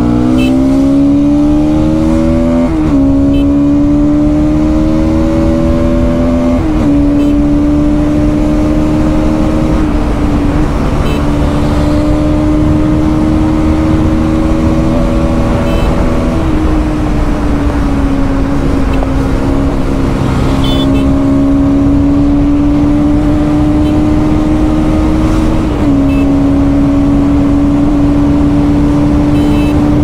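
Bajaj Pulsar NS200's single-cylinder engine pulling through the gears, its pitch climbing and dropping back at two upshifts in the first seven seconds. It then holds a steady high-speed cruise with small dips in pitch, under constant wind rush.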